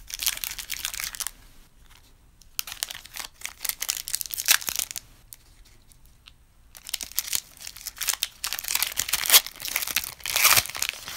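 Plastic trading-card pack wrapper crinkling and tearing as the cards are handled, in three long bursts with short pauses between.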